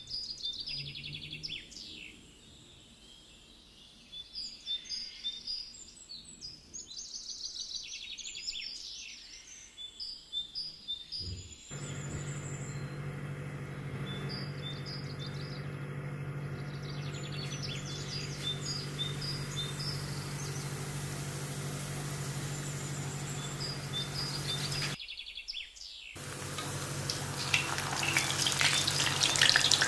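Small birds chirping over and over for about the first twelve seconds. Then a steady low hum takes over, with the birds fainter behind it. In the last few seconds, hot oil sizzling loudly as sheets of spring roll wrapper fry in it.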